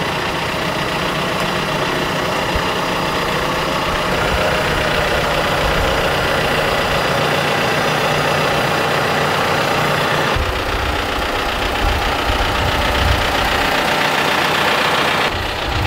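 John Deere utility tractor's diesel engine running steadily as the tractor drives slowly up onto a gooseneck trailer deck. The character of the sound changes abruptly about ten seconds in and again near the end.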